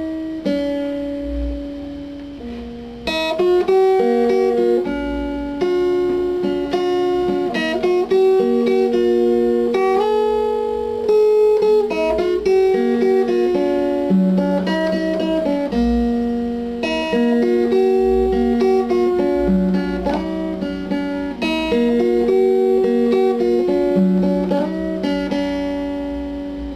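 Instrumental guitar music: single plucked notes forming a melody over lower bass notes, a little louder from about three seconds in.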